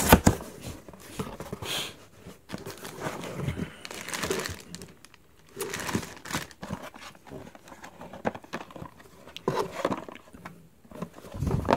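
Plastic packaging crinkling and cardboard rustling as items are handled and lifted out of a shipping box, in irregular bursts with short pauses.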